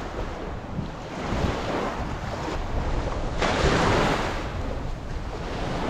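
Small waves washing onto a sandy shore, with wind rumbling on the microphone. The rushing noise swells louder about three and a half seconds in.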